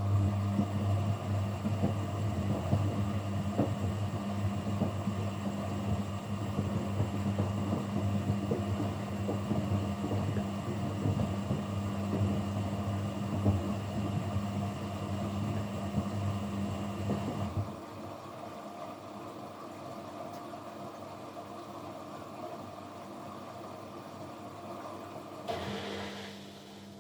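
Kunft washing machine running: a steady motor hum with irregular sloshing and clatter, which cuts off suddenly about two-thirds of the way through. A short rush of noise follows near the end, and a fainter, higher hum starts up.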